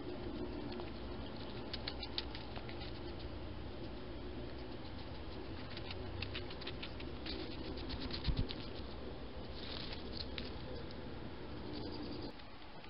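A young hedgehog foraging close to the camera: rustling and crackling in dry leaves and straw, with clusters of small clicks and one low thump about eight seconds in.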